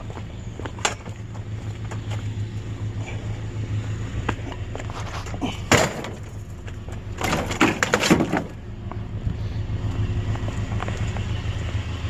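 A vehicle engine idling steadily. Over it come a sharp knock about a second in, another loud knock about halfway, and a burst of clattering knocks a little later, as scrap items are handled.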